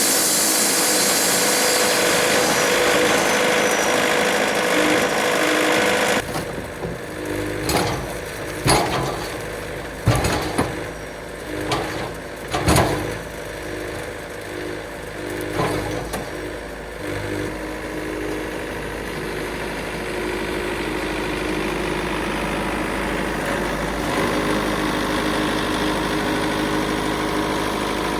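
Wood-Mizer LT70 bandsaw mill cutting yellow pine: a dense hiss of the blade in the cut, which stops abruptly about six seconds in. The mill then runs on with a string of sharp knocks and clunks for about ten seconds, then runs steadily.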